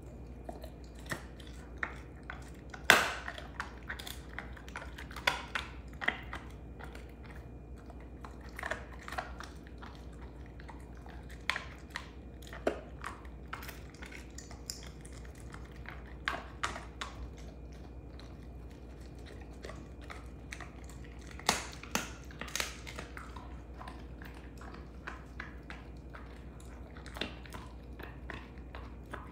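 A Belgian Malinois chewing a beef rib bone, with irregular sharp cracks and crunches as his teeth work the bone. The loudest crack comes about three seconds in, and there is another cluster around twenty-two seconds.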